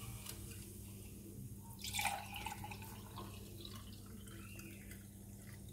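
Pink falsa-and-soda drink being poured into a drinking glass, the liquid splashing and dripping, with a brief louder burst about two seconds in. A low steady hum lies underneath.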